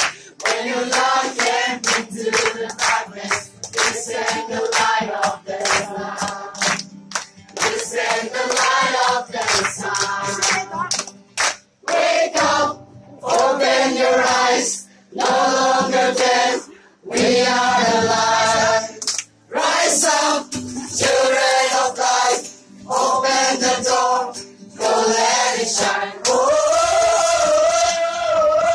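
A group of young voices singing a Christian praise song together, with hand-clapping that is thickest in the first couple of seconds.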